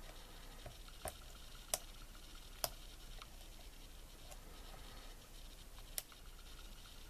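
Faint light clicking and scratching of a lock pick working the pins inside a pin-tumbler lock, with four sharper clicks spread through it.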